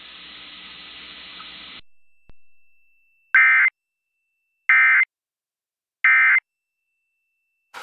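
Emergency Alert System End-of-Message (EOM) code: three short, identical bursts of screechy digital data about 1.3 seconds apart, marking the end of the alert, after a brief stretch of hiss.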